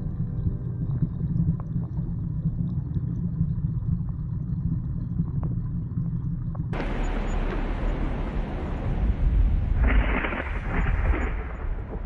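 Low, muffled rumble of pond water heard underwater through an action camera. About seven seconds in it cuts suddenly to a brighter rushing noise, with a louder surge near the end.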